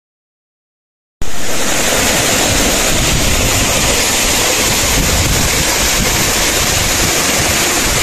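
Silent for about the first second, then the steady rush of a waterfall and the water streaming over the stone pool below it.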